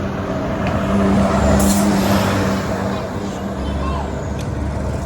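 Heavy road vehicle driving past with a steady low engine drone and road noise, loudest about a second and a half to two seconds in, with a brief hiss near its loudest point.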